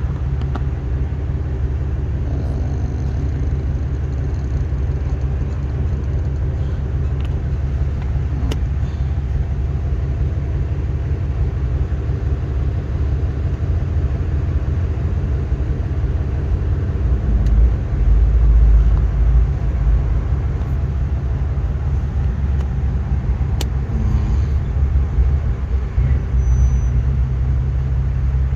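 A motor vehicle engine idling with a steady low rumble, getting louder for a few seconds around the middle.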